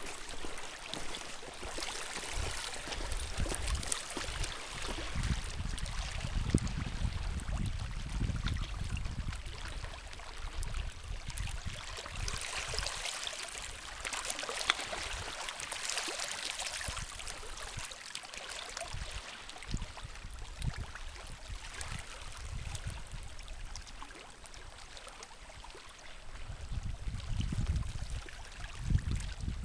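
Small waves lapping and trickling over a flat rock shoreline: a steady splashing hiss of water. Low gusts of wind buffet the microphone now and then, most strongly a few seconds in and again near the end.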